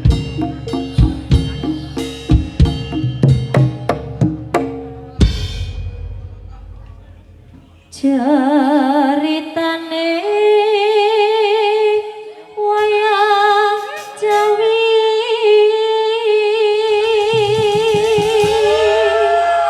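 Gamelan drumming, quick strokes closing on a last strike that rings out. About eight seconds in, a solo voice begins singing long held notes with a wide vibrato, in phrases with short breaks.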